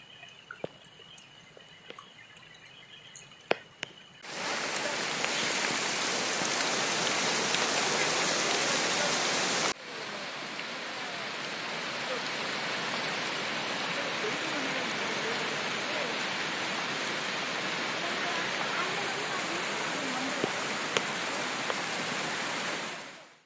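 Faint scattered drips and clicks, then about four seconds in a loud, even hiss of heavy rain starts abruptly. It steps down a little near ten seconds, runs on steadily and fades out at the end.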